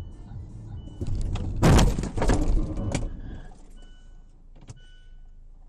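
Car crash heard from inside the dashcam car: a loud impact about a second and a half in, then crunching and rattling for about a second as it dies away. A single sharp knock comes near the middle.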